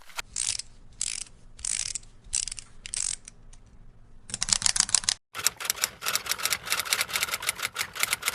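A run of about six short hissy strokes roughly every half second, then a brief burst of noise and a fast run of sharp mechanical clicks, like typing.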